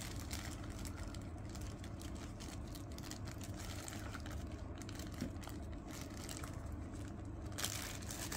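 Faint, scattered crinkling of a thin clear plastic bag being handled and pulled open, with one slightly louder rustle near the end, over a steady low hum.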